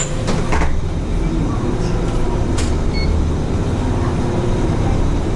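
Isuzu city bus running along the road, heard from inside the cabin at the front: a steady low engine and road rumble, with a few short rattles, one about two and a half seconds in.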